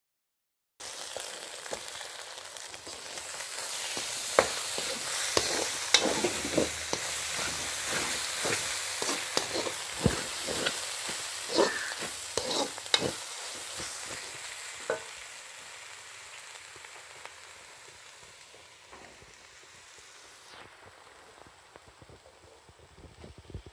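Shredded cabbage, carrot and egg sizzling in a hot metal wok while a spatula scrapes and knocks against the pan. It starts after a brief silence. The stirring strokes come thick and fast for several seconds, then the sizzle settles quieter.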